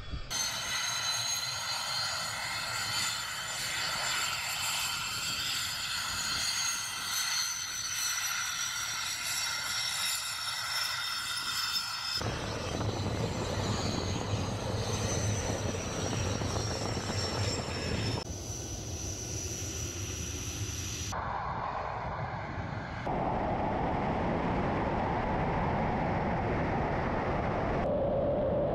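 Su-25 ground-attack jet's twin turbojet engines: a high whine of several tones sliding slowly down in pitch, joined about twelve seconds in by a deep rumble, with the sound changing abruptly several times. In the last few seconds it becomes a louder, steady rushing noise of the jet in flight.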